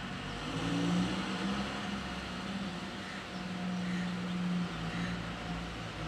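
Distant engine drone: a low steady hum that rises a little in pitch about a second in, over a steady hiss.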